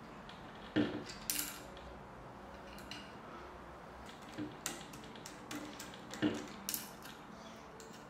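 Light metallic clicks and clinks, about six in all, the loudest about a second in and again after six seconds: a nut driver and the small 5.5mm bolts from a washing machine motor's carbon brush holder being handled and set down on a table.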